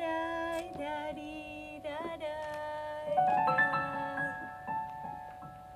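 Electric keyboard holding sustained chords while a voice sings long, wavering notes over it; a louder sung phrase comes in about three seconds in, and the music fades near the end.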